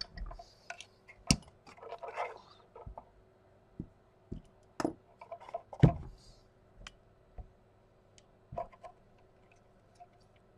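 Scattered handling noises: light clicks and knocks with brief rustling as a small circuit board and its wires are lifted out of a dispenser's case. The loudest knock comes about six seconds in, over a faint steady hum.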